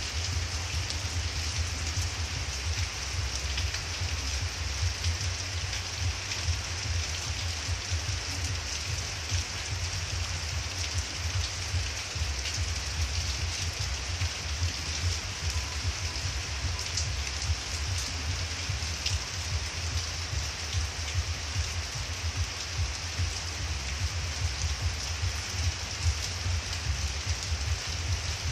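Steady heavy rain falling on garden foliage and wet ground, an even hiss with a low rumble underneath.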